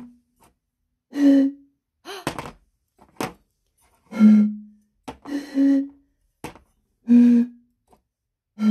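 Glass bottles partly filled with water blown across the mouth, giving a series of short breathy hoots at two or three different pitches, about six notes in all; the water level in each bottle sets its pitch, the fuller bottle sounding higher. A few short knocks fall between the notes as the bottles are picked up and set down.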